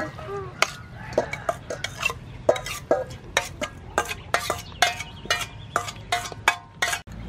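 Metal spoon scraping and clinking against stainless steel bowls as minced raw fish is scraped from one bowl into another, a quick irregular run of clinks, each ringing briefly.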